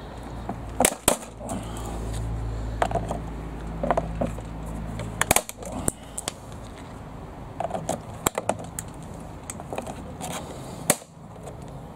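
Air fryer's plastic housing cracking and snapping as it is cut and broken apart with side cutters: a handful of sharp cracks, the loudest about a second in, around five seconds in, and near the end, over a low hum in the first half.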